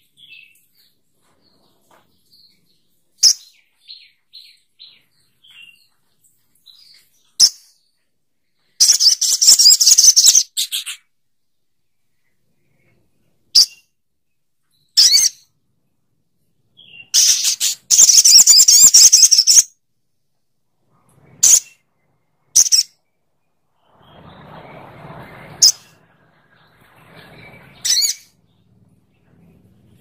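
Male olive-backed sunbird (sogok ontong) singing: sharp, high single chirps scattered throughout, and two longer, rapid, high trilled phrases, about nine seconds in and again around eighteen seconds.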